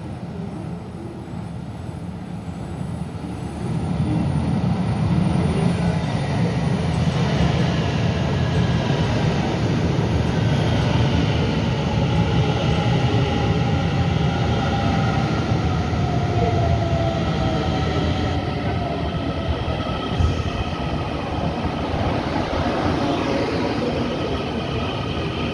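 Taiwan Railway EMU900-series electric train (set EMU935) running into an underground station platform. Its rumble swells sharply about three seconds in and stays loud, with whines that fall steadily in pitch as the train slows to stop, and one short knock near the end.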